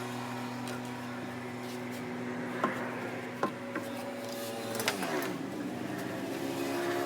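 A motor running with a steady hum, broken by a few sharp clicks; its pitch drops about five seconds in and then settles at a new pitch.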